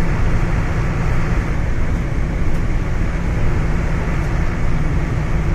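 Steady engine and tyre noise inside a moving vehicle's cabin at highway speed, a deep even rumble.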